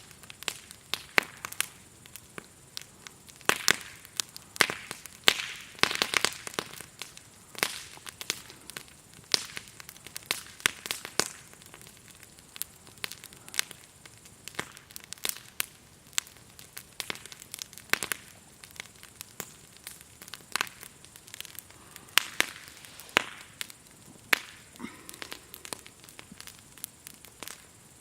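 Wood campfire crackling, with irregular sharp snaps and pops from the burning logs. A faint, steady, high insect chirring runs underneath.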